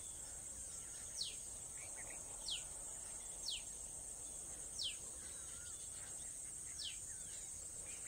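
Faint background ambience: a steady high-pitched insect-like drone, with a short falling chirp repeated every one to two seconds.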